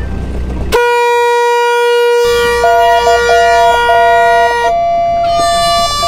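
Horns blown as a farewell signal between boats. Several sustained blasts at different pitches overlap: a steady low blast starts about a second in and holds for about four seconds, a higher horn joins with short breaks, and a third, higher horn starts near the end.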